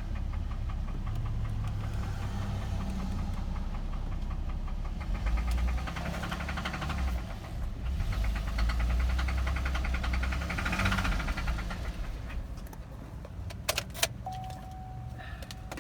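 2008 Cadillac CTS V6 engine running with a fast, steady knocking. Near the end come a few sharp clicks and a short steady tone.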